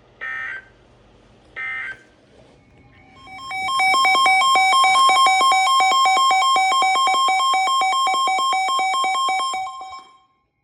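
NOAA Weather Radio alert signalling: two short digital data bursts (SAME end-of-message codes), then about three seconds in a loud, rapidly warbling electronic alert tone that runs for about six seconds and cuts off suddenly, announcing the next tornado warning.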